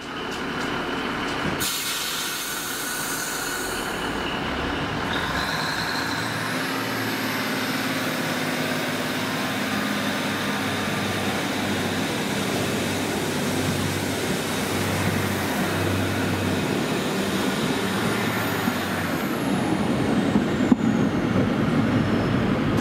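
Northern Class 150 Sprinter diesel multiple unit running at the platform, its underfloor diesel engines steady, with a high whine that rises a few seconds in. Near the end it pulls away: the whine falls, the sound grows a little louder and a few clicks come from the wheels and track.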